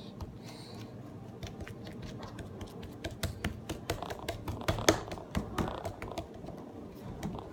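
Slime being worked by hand with a drop of lotion, giving many quick, irregular sticky clicks and small pops, busiest in the middle.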